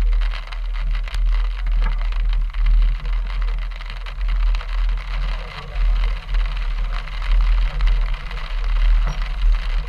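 Chevy Suburban driving slowly on a muddy dirt trail: its engine and tyres make a steady low rumble that swells and dips, with a hiss of road noise over it.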